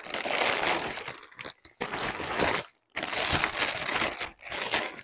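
Thin plastic bag crinkling and rustling as it is handled and pulled open inside a cardboard box, with one brief pause a little past halfway.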